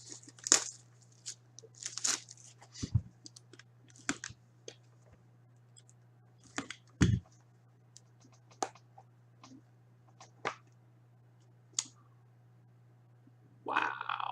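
Sports card box and packaging being opened and handled: scattered short rustles, crinkles and clicks of cardboard, wrapper and cards, with two dull thumps about 3 and 7 seconds in. A faint steady low hum runs underneath.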